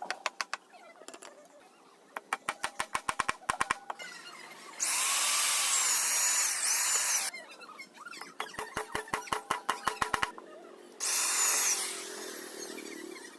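Power drill running in two bursts, a longer one of about two and a half seconds and a shorter one of about a second, its pitch sliding as the speed changes. Between the bursts come two runs of rapid, evenly spaced clicks, roughly ten a second.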